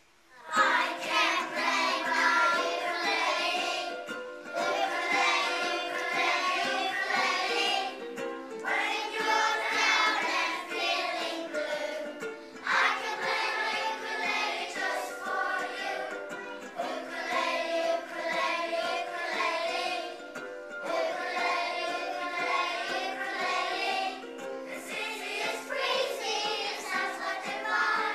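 A group of young children singing a song together, with ukuleles strummed along, in phrases a few seconds long separated by short breaks.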